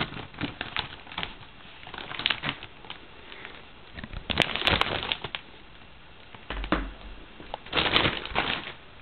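Plastic wrapping crinkling and rustling in several short spells as a netbook is handled in it, with a low thump about two-thirds of the way through.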